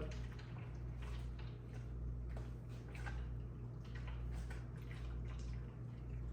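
Eating noises: scattered soft clicks and smacks of chewing and handling fried chicken and fries, irregular and close to the microphone, over a steady low hum.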